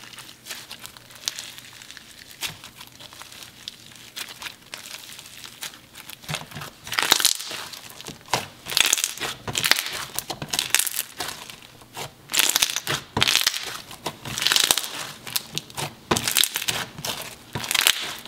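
Pink chewed-bubblegum-textured slime being stretched, folded and pressed by hand: a dense sticky crackle of small pops and clicks. It gets louder, in bursts, from about seven seconds in.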